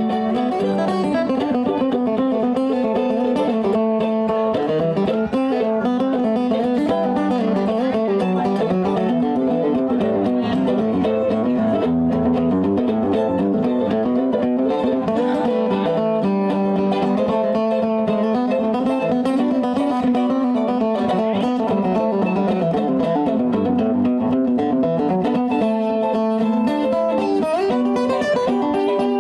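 Acoustic guitar and mandolin playing an instrumental passage of a bluegrass tune, with the acoustic guitar picking the lead.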